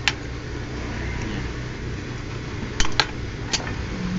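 Steady low hum of an industrial sewing machine's motor running idle, with a few sharp clicks as the fabric is handled at the machine, three of them close together about three seconds in.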